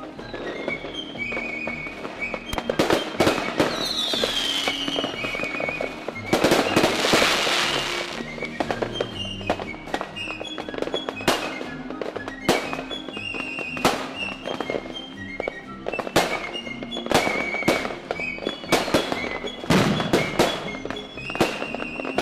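Aerial fireworks shells bursting one after another: a dozen or more sharp reports at irregular intervals, with music playing along with them.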